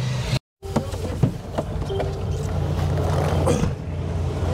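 Vehicle engine idling with a steady low hum, heard from inside the cab, with a few knocks and clicks. The sound drops out briefly about half a second in.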